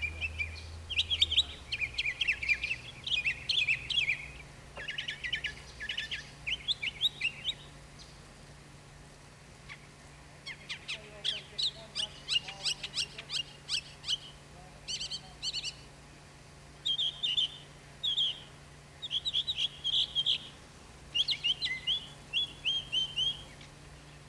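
A songbird singing in runs of quick, repeated chirps, with a pause of about two seconds near the middle.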